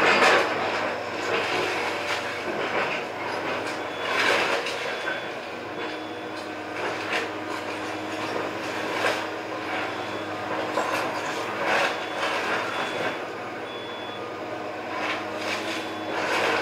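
Komatsu excavator's diesel engine running under load as it tears down a house, with loud crunching and cracking of breaking debris every few seconds.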